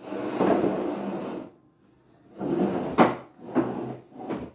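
Furniture being shifted and handled: a scrape lasting about a second and a half, then, after a short pause, a run of knocks and shorter scrapes, the sharpest knock about three seconds in.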